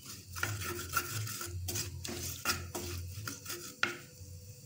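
Wooden spoon stirring and scraping chunks of boiled baby jackfruit through a thick spiced vinegar mixture in a clay pot: a string of irregular scrapes and light knocks against the pot.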